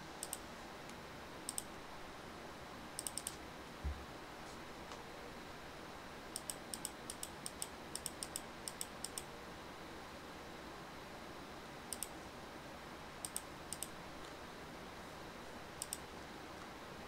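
Scattered sharp clicks at a computer, mostly singly or in pairs, with a quick run of about a dozen clicks between about six and nine seconds in, over a faint steady hiss. A single low thump about four seconds in.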